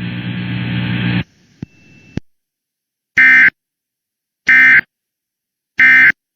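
Emergency Alert System end-of-message code: three short, identical bursts of digital data tones, each about a third of a second and starting about 1.3 seconds apart. Before them a steady hum cuts off about a second in.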